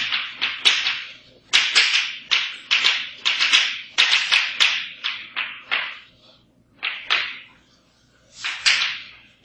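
Chalk writing on a blackboard: quick, scratchy strokes several times a second, with two short pauses in the second half.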